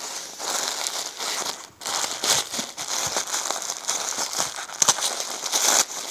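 Tissue paper and bubble wrap crinkling and rustling as hands rummage through packing in a cardboard box: a busy run of sharp crackles, loudest near the end.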